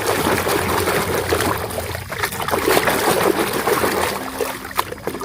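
Water trickling and splashing over a muddy toy vehicle as it is washed, with scattered small clicks.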